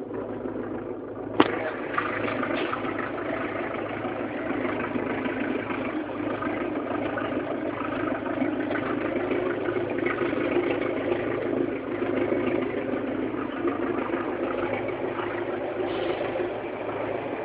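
Houseboat engine running steadily with a low hum. A single sharp click comes about a second and a half in.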